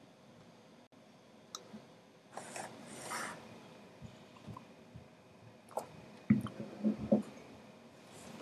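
Handling noise close to the microphone: a sharp click, then about a second of rustling, then a cluster of soft knocks and clicks near the end.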